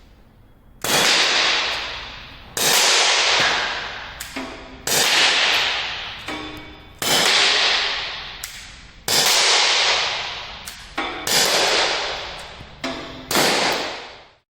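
Umarex .50 caliber CO2 air pistol firing a string of seven shots, about two seconds apart, each a sharp crack that trails off slowly, with fainter clicks between some of the shots.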